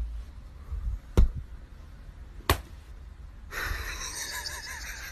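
Sharp slaps on a straw floor mat, about one every second and a quarter, then a steady hiss from about three and a half seconds in with faint wavering tones.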